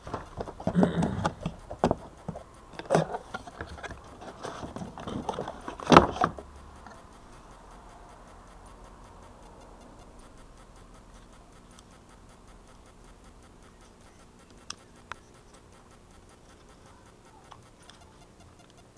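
Handling of a camera's cardboard box and packaging: a run of knocks, scrapes and rustles for the first six seconds, the loudest knock at about six seconds. After that only faint handling, with two small clicks later on.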